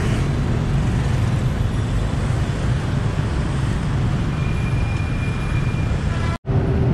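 Steady city street traffic noise of cars and motorbikes, a continuous rumble. The sound cuts out for an instant near the end.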